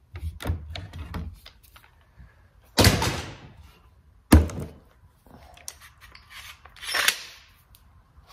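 Clamps being loosened and taken off a chair leg: a quick run of small clicks, then several separate knocks and clunks of the clamps against wood.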